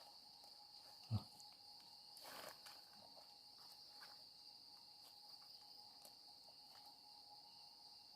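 Faint, steady high-pitched chirring of crickets and other night insects, with a soft thump about a second in and a brief rustle around two and a half seconds in.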